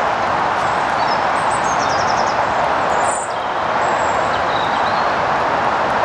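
Steady rushing background noise, even and unbroken, with a few faint, high songbird chirps over it between about one and five seconds in.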